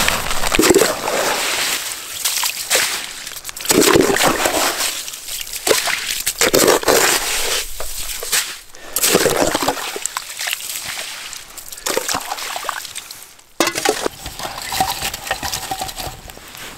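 Water sloshing and splashing in a hole freshly drilled through lake ice with a hand ice auger, in repeated bursts.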